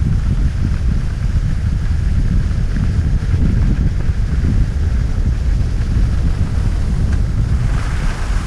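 Wind buffeting a GoPro Hero 5 Session's microphone while skiing downhill: a loud, steady, gusting rumble, with a brighter hiss swelling near the end.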